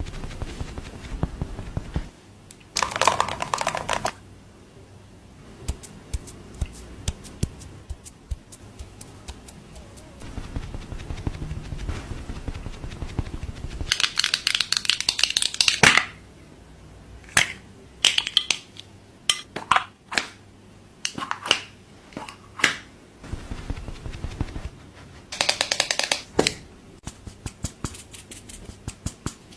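Close-up makeup sounds: scattered sharp clicks and taps of makeup cases, lids and tools, with three louder rustling bursts of products being applied or handled, one near the start, one midway and one near the end.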